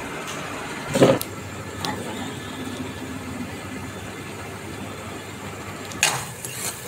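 Steady hiss of semolina halwa cooking in a steel kadhai on a gas stove. There is a short clatter about a second in and a brief louder noise near the end.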